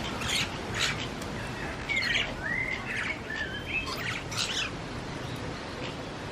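Birds chirping, with several short whistled calls that bend up and down in pitch about two to four seconds in.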